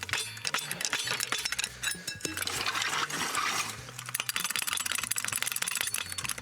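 Metal hand tools clicking and clinking, quick sharp clicks that become fast and even about four seconds in, as the car is worked on and jacked up.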